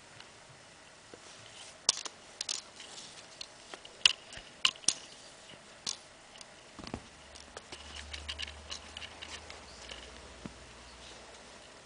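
Scattered sharp clicks and scratchy rustles, clustered about two to five seconds in, as a Bengal kitten scrabbles and plays on wooden floorboards. A low rubbing rumble comes in about seven seconds in and fades near the end.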